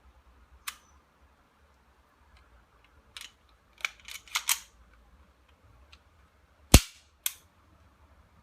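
Ruger P97 DC pistol being handled and its metal action worked, giving sharp metallic clicks and clacks. There is a scattered handful, a quick cluster near the middle, and the loudest single clack about two-thirds of the way through.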